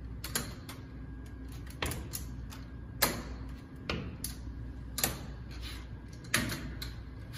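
Aluminium underarm crutches knocking down on stair treads and a sneaker landing as a person hops up a staircase one step at a time without weight on one leg: about six sharp knocks, roughly one a second, with fainter clicks between.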